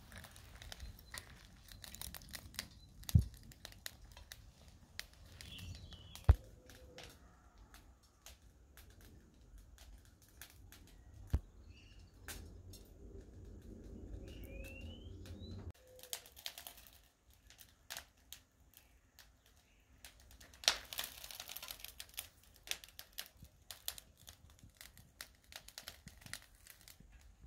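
Lump charcoal crackling and popping as it catches in a chimney starter: scattered small crackles with a few sharp pops, the loudest about three, six, eleven and twenty-one seconds in. A low rumble runs from about twelve to sixteen seconds in.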